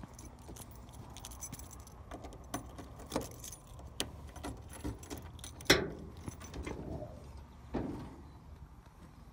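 Keys jangling and small metallic clicks as the trunk of a 1967 Camaro RS is unlocked, then a sharp clack a little after halfway, the loudest sound, as the trunk latch lets go, and a duller knock about two seconds later as the lid comes up.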